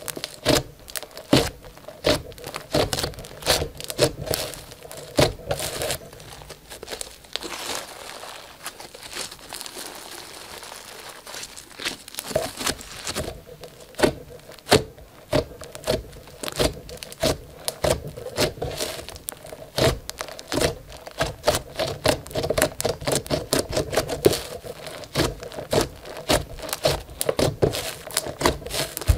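Hands squeezing, poking and folding a bead-speckled slime: rapid sticky clicks, pops and crackles, many a second, thinning out for a few seconds in the middle.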